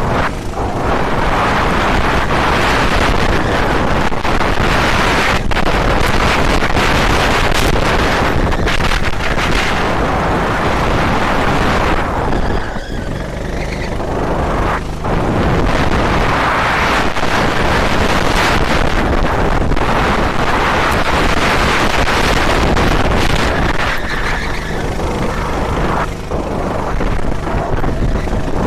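Loud, continuous rush of wind and engine noise on an onboard camera of a racing vehicle at speed, swelling and easing every few seconds, with a brief dip about twelve seconds in.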